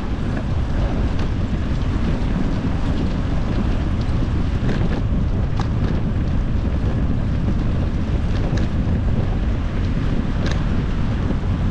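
Wind buffeting the microphone of a bike-mounted camera while riding, a steady low rumble. A few light ticks sound over it.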